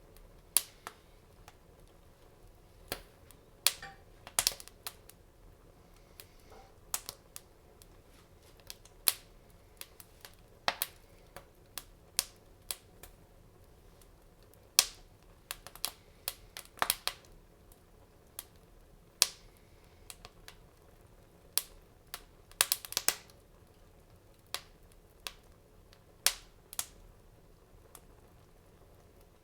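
Wood fire crackling in a fireplace: irregular sharp pops and snaps, scattered with quiet gaps between them and a quick cluster of several pops about three-quarters of the way through.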